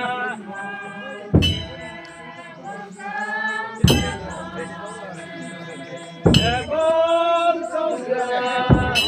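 A group of voices singing a slow chant-like song, with a deep drum struck four times at an even beat about two and a half seconds apart.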